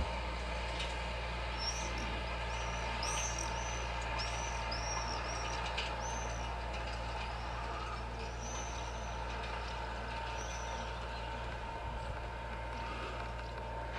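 Tractor engine running steadily at a distance as it pulls a field crop sprayer, a low even hum. A small bird chirps repeatedly over it, short high notes every half second or so through most of the stretch.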